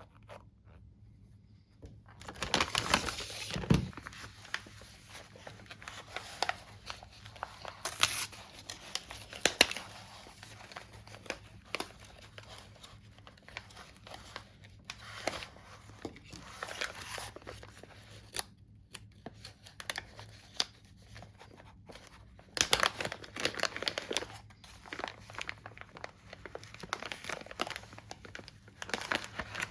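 Packaging crinkling and tearing in irregular bursts as new RC crawler tires are unwrapped and handled.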